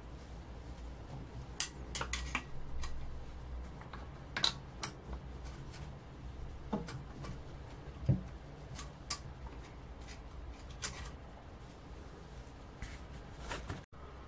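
Scattered clicks, taps and light knocks of hands handling and fitting the plastic and metal parts of a small airbrush compressor's head and fan housing during reassembly, over a faint steady low hum.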